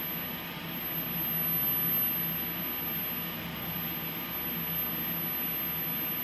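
TIG welding arc fusing the edge joint of two metal sheets without filler wire, held steadily along the seam: a continuous hiss with a low steady hum.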